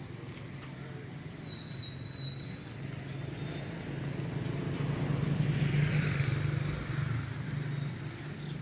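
A motor vehicle's engine running steadily, growing louder from about four seconds in and easing off again near the end, as it passes close by.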